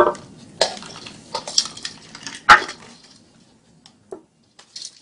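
A handful of short clatters and clinks of hard objects, the loudest about two and a half seconds in, then a couple of fainter taps near the end.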